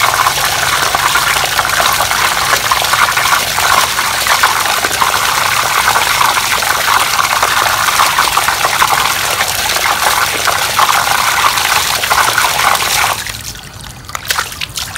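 Strong jet of water gushing from a pipe into a plastic basin and splashing over a pork trotter being scrubbed under it. The flow cuts off suddenly near the end, leaving a few sharp clicks.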